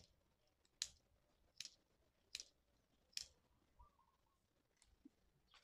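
Small spring-loaded scissors of a Victorinox Swiss Army knife snipping, four crisp cuts about one every 0.8 s, then a fainter one at the end.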